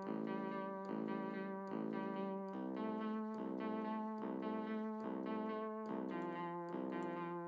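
Instrumental background music: a keyboard playing sustained chords, a new chord about every second.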